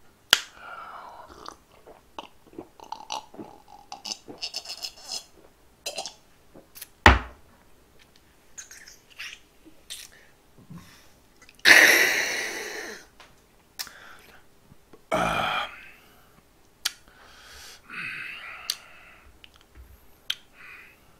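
Close-miked mouth sounds of a man drinking a glass of somaek (soju mixed with beer): swallowing, lip smacks and small clicks. A sharp knock about seven seconds in as the glass is set down on the table, then a loud breathy exhale-like burst about twelve seconds in.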